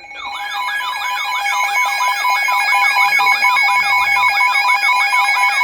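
Emergency alert signal: a steady two-tone attention tone with a fast warbling siren tone, about four sweeps a second, layered over it. It fades in over the first second and stays loud, and a falling glide joins near the end.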